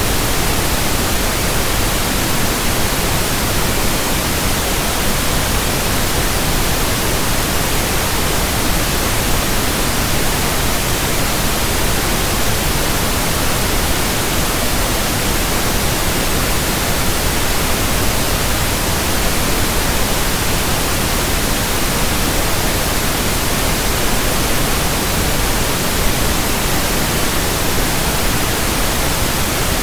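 Steady pink noise: an even, unbroken hiss with no tones, rhythm or changes.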